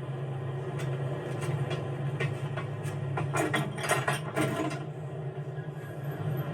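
A steady low mechanical hum, with a run of rapid clicking and rattling in the middle, about three to four and a half seconds in.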